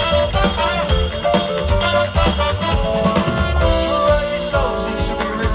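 Live band music with a driving drum kit: snare rimshots and bass drum under pitched instrumental lines.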